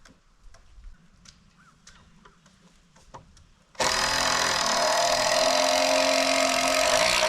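Handheld power tool runs steadily and loudly for about three and a half seconds, starting abruptly about four seconds in and cutting off sharply. Before it there are only a few faint light clicks.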